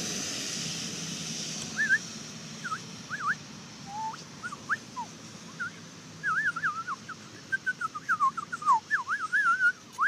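Short, thin, sliding whistle-like chirps: a few scattered ones at first, then a quick run of them from about six seconds in.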